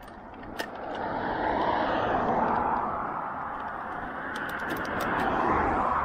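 Rushing noise of a Tern Verge folding bike under way: wind over the handlebar-mounted camera and tyres on asphalt, building as it gathers speed and swelling twice. A few light clicks sound over it.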